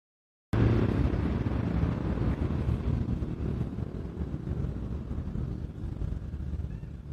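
Steady low rumble of street traffic, starting suddenly about half a second in after a moment of silence.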